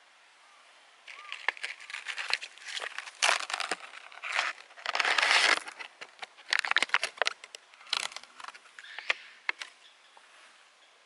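Paper towel in a glass bowl crinkling and rustling while a handful of corn seeds is tipped in, with many sharp little clicks, loudest a few seconds in and tailing off near the end.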